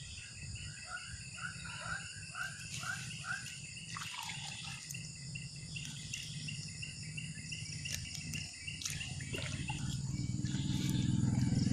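Pond-side wildlife: a quick series of short repeated chirping animal calls over a steady high trilling of insects. A low rumbling drone swells up near the end.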